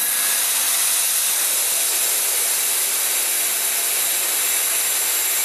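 Mist coolant spray nozzle hissing loudly and steadily as it cools the cut on a CNC-converted Myford Super 7 lathe, with the lathe turning the part beneath it.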